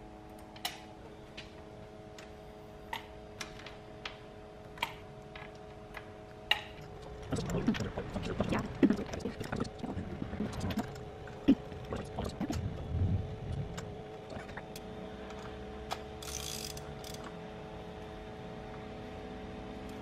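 Hand tools clicking and clattering against metal while spark plugs are put back into a Honda B16A engine, over a steady hum. There are scattered single clicks at first, then a busier stretch of clatter in the middle, and a short hiss near the end.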